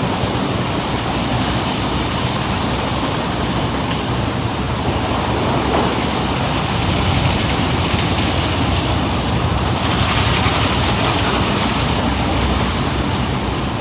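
Steady rushing noise of car wash machinery, with a Chevrolet Silverado pickup's engine running as the truck drives slowly into the wash bay.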